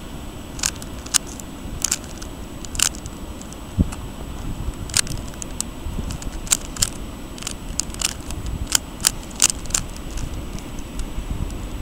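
Plastic 3x3 puzzle cube being turned one-handed, its layers snapping round in irregular sharp clicks, a few at first and coming faster after about five seconds.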